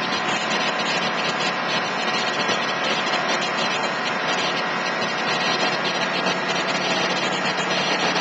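Aerial ladder fire truck's engine running at a steady idle, keeping the ladder's hydraulics powered while the bucket is raised.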